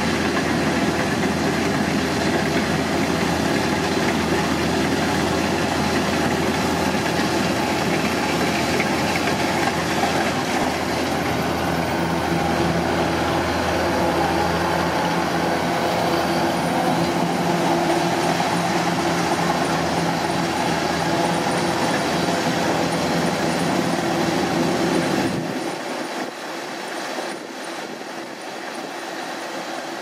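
Kubota DC-105X rice combine harvester running under load while harvesting: the steady drone of its diesel engine mixed with the clatter of the cutting and threshing machinery. About 25 seconds in the sound drops suddenly to a quieter, thinner level as the machine moves farther off.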